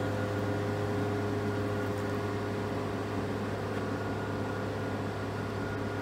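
A boatyard travel lift's engine and hydraulic winches running, lowering a sailboat in its slings into the water: a steady mechanical hum.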